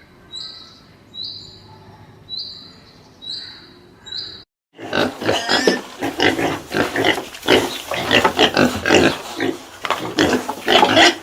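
Pigs grunting in a loud, dense run of calls that starts suddenly about five seconds in. Before that, a fainter short high call repeats about once a second.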